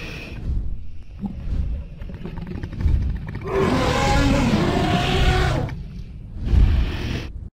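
Dragon sound effect: heavy, low whooshing wing beats, then a long growling roar lasting about two seconds midway. Another wing beat follows, and the sound cuts off abruptly near the end.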